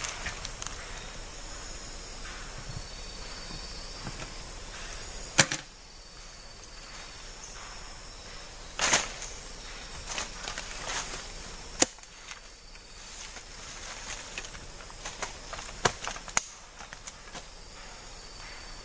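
Steady high hiss of rainforest ambience with a faint thin insect-like buzz in it. Four sharp clicks break it, and after three of them the background drops away and slowly swells back.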